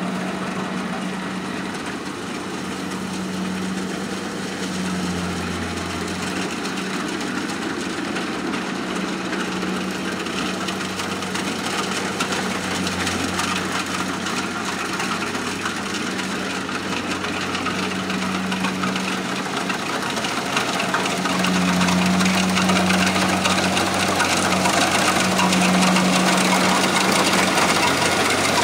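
Kubota combine harvester's diesel engine running steadily, with the machine's mechanical noise over it, growing louder after about twenty seconds.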